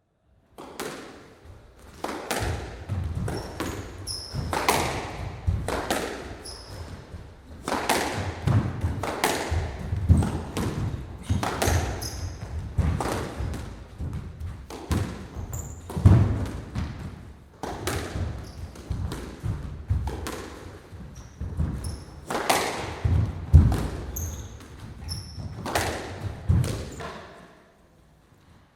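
Squash rally in an enclosed court: a rubber squash ball struck by rackets and smacking off the walls and floor, the hits coming irregularly a second or so apart, each echoing in the court, with short high squeaks between them. The rally starts about half a second in and dies away just before the end.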